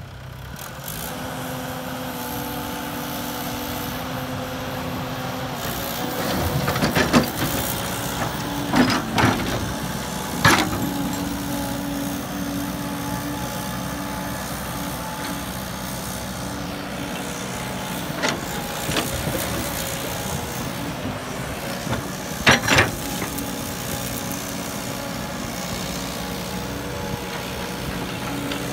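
Crawler excavator's diesel engine running steadily under hydraulic load while it digs and loads soil. Several sharp knocks and thuds come from the bucket and from dirt landing in the dump truck's steel bed, the loudest about a third of the way in and again about three quarters through.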